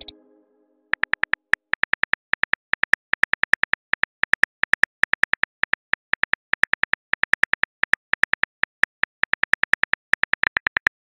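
Simulated smartphone keyboard typing clicks from a texting-story app. A quick, even run of short, bright taps, about eight a second, one for each letter typed, starting about a second in.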